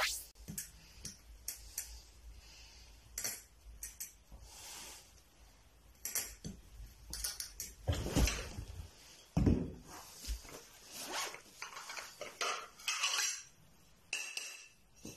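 Faint, scattered clinks and knocks of glass bottles touching as liquid is poured from two bottles into the neck of a third, with quiet gaps between.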